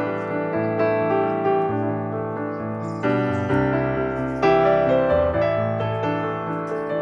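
Background piano music: slow, sustained chords that change every second or so.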